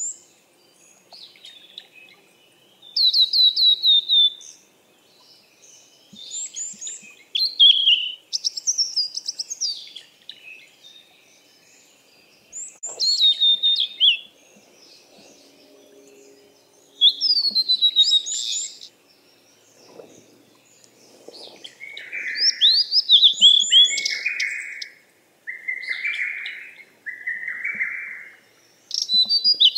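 Songbirds singing: short phrases of quick, high chirps falling in pitch, repeated every second or two. In the last third come four harsher, rougher calls, lower in pitch, each about a second long and about two seconds apart.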